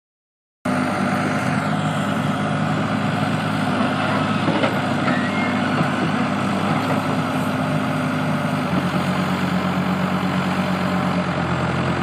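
1992 JCB 1400B backhoe's diesel engine running steadily, with the front of the machine jacked up on its loader bucket. About nine seconds in, the engine note shifts lower.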